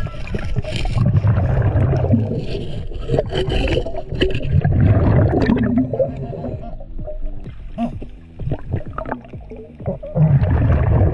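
Underwater sound of a scuba diver breathing through a regulator: exhaled bubbles rumble out in three bursts, about every four to five seconds. Short clicks and scrapes from hands and gear on the bottom come in between.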